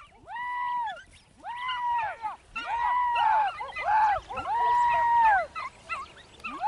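Beagle hounds baying on a rabbit's scent: about six long, drawn-out bays in quick succession, each rising, holding and falling away, with two voices overlapping around the middle and a pause near the end before another starts.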